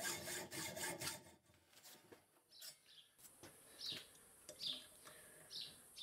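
Hand hacksaw cutting through a bolt held in a vise, quick even strokes that stop about a second in as the washer slice comes free. A few light metal clicks follow, then a bird chirps several times with short falling notes.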